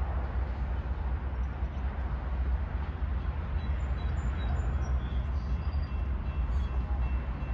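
Steady low rumble of diesel locomotive engines, with faint high tones coming in near the end.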